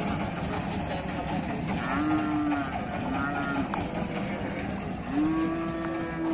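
Cattle mooing: three calls, two short ones about two and three seconds in, then a longer one near the end.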